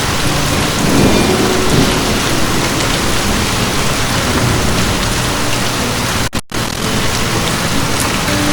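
Heavy rain falling steadily as a dense hiss, with a low thunder rumble swelling about a second in. About six seconds in, the sound cuts out for a split second and comes back.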